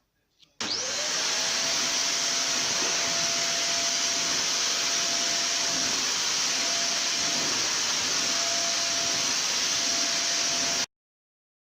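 Vacuum cleaner switched on about half a second in, its motor spinning up to a steady whine over a loud, even rush of air, then running steadily. The sound cuts off abruptly near the end.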